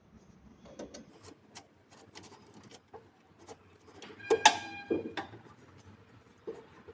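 Small clicks and taps of wiring work on a PV combiner box, terminals, fuse holders and tools being handled. About four and a half seconds in comes one louder metallic clink that rings briefly.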